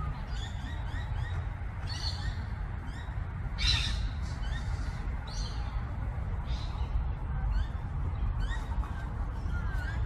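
Wild birds calling: many short, high chirps and call notes repeated through the whole stretch, with one louder, noisier call about four seconds in. A steady low rumble runs underneath.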